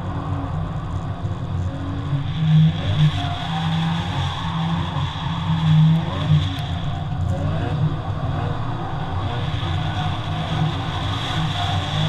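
Supercharged Toyota 86's flat-four engine revving up and down as the car is driven hard through a cone course, with louder bursts of throttle a few times.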